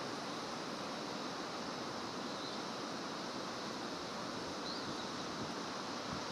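Steady outdoor rushing noise, an even hiss with no rhythm, with two faint short high chirps in it.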